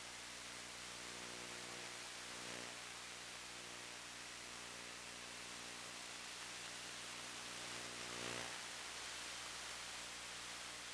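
Faint, steady hiss of static on the audio channel of an analog 1.3 GHz FPV video link, with a low steady hum underneath.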